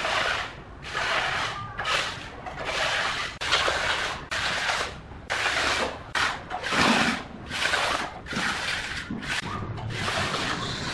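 Hand plastering trowel scraping over fresh cement render on a wall, in repeated irregular strokes about once a second.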